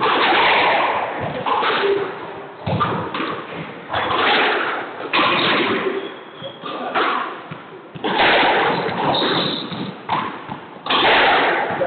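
Squash rally: racket strikes and the ball hitting the court walls, each sharp impact ringing with echo in the enclosed court. A few short high squeaks, typical of court shoes on the wooden floor, come in between.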